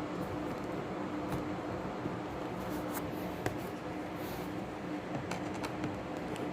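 Light scratching and scattered small clicks of hands working at a laptop's plastic case, over a steady low hum.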